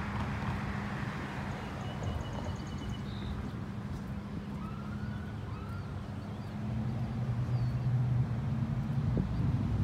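Road traffic running steadily with a low engine hum, growing louder about seven seconds in as a vehicle comes closer.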